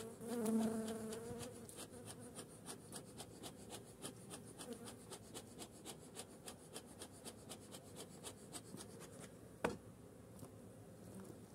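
Honeybees buzzing close by, plainest in the first second or so, then a fast, even run of faint dry ticks, about five a second, and one sharp knock near the end.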